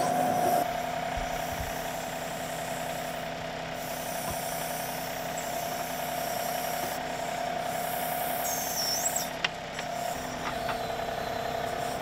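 John Deere 2038R compact tractor's three-cylinder diesel running steadily while its backhoe digs, with a steady tonal hum over the engine. A brief high squeal comes about nine seconds in, followed by a single click.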